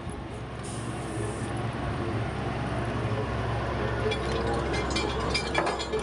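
DEW 2000 water well drilling rig running steadily with a low, even machine hum. Light metallic clinks and rattles come in over the last couple of seconds.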